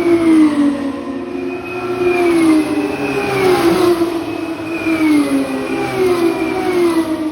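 Formula 1 car's turbocharged V6 engine running hard, its pitch sliding down and jumping back up about six times in a row, as with successive gear changes.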